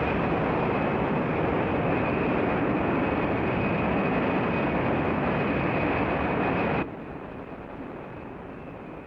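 Loud, steady rushing noise with a faint high whine in it, cutting off abruptly about seven seconds in to a quieter, fading hiss.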